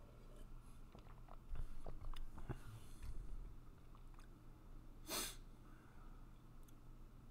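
A few faint scattered clicks, as of a computer mouse, over a low steady hum, then one short sniff through the nose about five seconds in.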